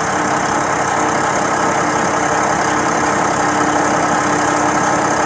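Engine of a piece of construction equipment running steadily at idle, a loud, even drone with a constant hum.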